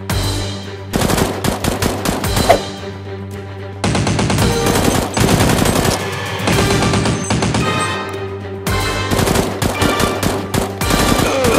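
Three bursts of rapid machine-gun fire, dubbed-in gunfire sound effects, over background music with steady held notes.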